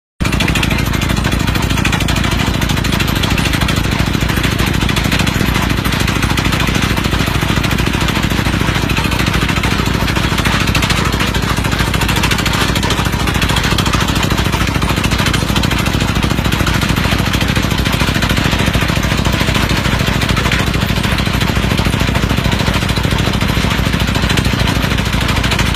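Pneumatic percussion hammer of a well-drilling rig drilling into hard rock: a loud, steady, very rapid hammering that never lets up.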